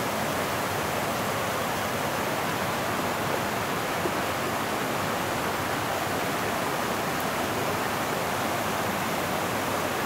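Small waterfall and rapids running over rock: a steady rush of water.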